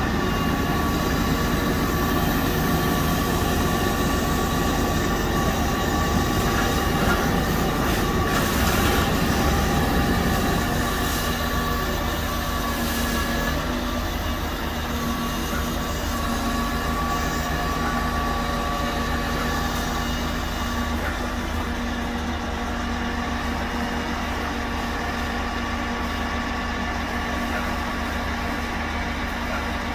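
Grapple loader truck's engine and hydraulic pump running steadily, a dense mechanical drone with several steady whining tones; it is louder for the first ten seconds or so, then eases off a little.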